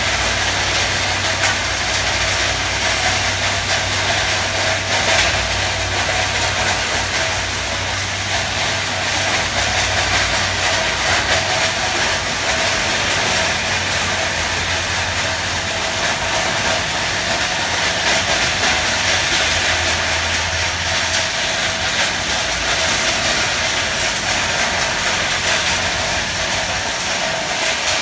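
Steady heavy machinery noise: a diesel engine's low drone under a broad, even hiss, the engine note shifting about twenty seconds in.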